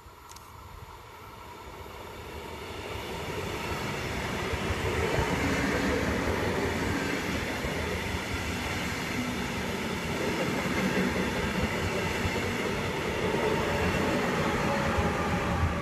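Deutsche Bahn double-deck regional push-pull train, its electric locomotive at the rear, approaching and passing on the rails. The rolling of wheels on track grows louder over the first five seconds or so, then stays loud and steady as the coaches and the locomotive go by.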